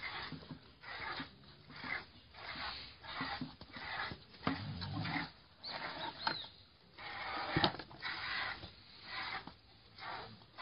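Piglet suckling at a cow's teat: a steady rhythm of short sucking noises, a little over one a second, with a single sharp click about three-quarters of the way through.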